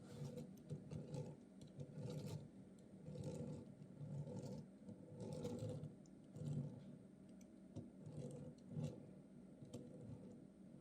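LEGO Technic pieces clicking and rattling as they are handled and snapped together, in short irregular clicks with soft rustling between.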